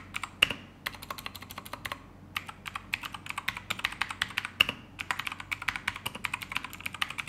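Typing on a Keychron K2 mechanical keyboard with Gateron Blue switches: a fast, uneven run of sharp, clicky keystrokes with a couple of brief pauses.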